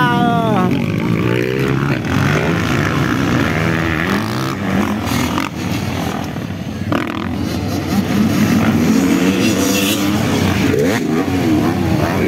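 Several motocross dirt bikes racing on a dirt track, their engines revving up and down through the gears. A close bike's engine note drops in pitch at the start.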